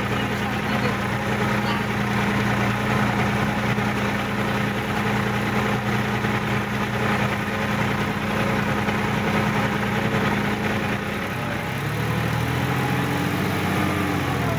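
Sonalika DI-50 RX tractor's diesel engine running steadily while the tractor is driven, heard from the driver's seat. About eleven seconds in, the engine note shifts and rises.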